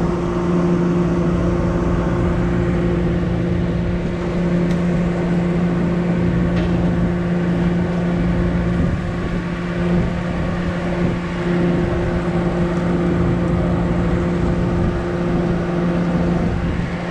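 Party fishing boat's engine running steadily, a low even hum under a haze of wind and water noise.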